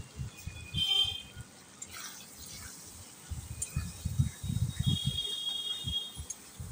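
Steel spatula stirring and scraping potatoes and pointed gourd in oil in a metal kadai, with light sizzling, a couple of brief high metallic squeaks and a run of irregular knocks against the pan from about three and a half seconds in. This is the frying of the vegetables with freshly added salt and turmeric.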